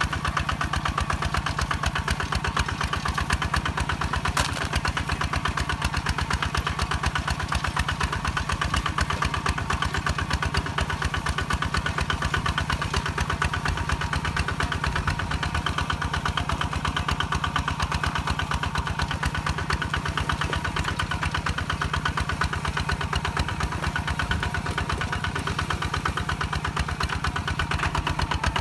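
Kubota ZT 155 DI walking tractor's single-cylinder diesel engine running steadily with an even, rapid chugging beat while it pulls a ridging plough through soil.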